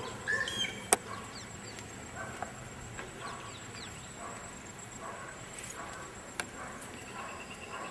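Outdoor ambience: scattered short bird chirps over a steady high insect whine. A sharp click about a second in is the loudest sound, with fainter clicks later.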